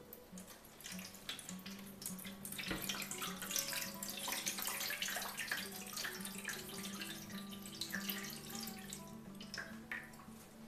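Water poured from a jug into a metal oven tray, splashing and spreading across the tray around a clay baking dish to make a water bath. The pouring tapers off near the end.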